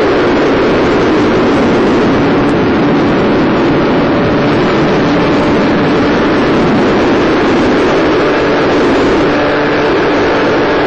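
Steady rush of wind and an electric motor turning the propeller of an FPV model plane under power, picked up by its onboard microphone, with faint steady tones under the noise.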